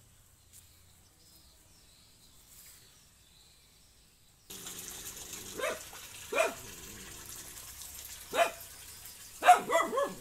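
Near silence for about four seconds, then a dog barking over a faint steady hiss: a few single barks spaced a second or two apart, then a quick run of three or four barks near the end.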